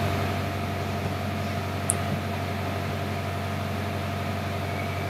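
Steady low background hum, like a fan or electrical hum picked up by the microphone, with one faint short tick about two seconds in.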